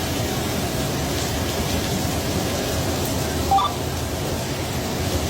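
Steady rushing noise of flowing water during flooding, with a brief high chirp about three and a half seconds in.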